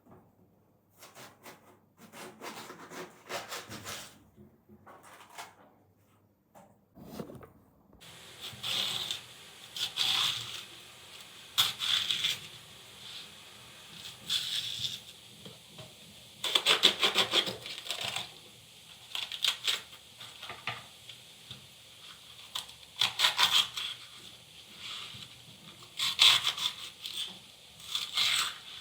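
Irregular scraping, rubbing and rustling handling sounds in short bursts, some louder than others.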